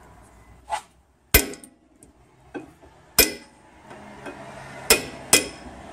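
Hammer striking a chisel to knock the slotted metal sleeve of a worn front wishbone (control arm) bush off its shaft: four hard, irregular metal-on-metal blows with a short ring after some of them, and a couple of lighter taps between.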